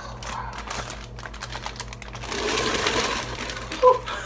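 Crawfish tipped from a wet plastic bag into a pot of boiling water: crinkling plastic and a quick run of clicking clatter, then a denser rush of splashing in the middle. A short vocal exclamation comes near the end.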